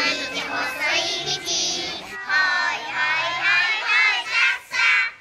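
A group of young children singing together over held instrumental notes, with a short break about two seconds in before they go on.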